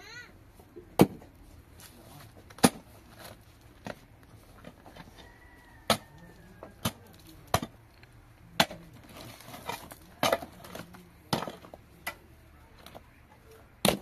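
A short-handled hoe striking into stony soil and rubble, digging it out. There are about nine sharp strikes, irregularly spaced one to two seconds apart.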